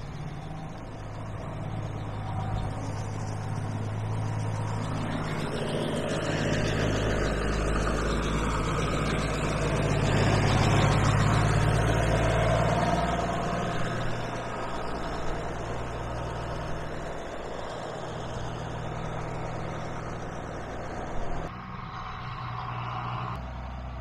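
Farm tractor engine running steadily as it drives, growing louder toward the middle and easing off again later.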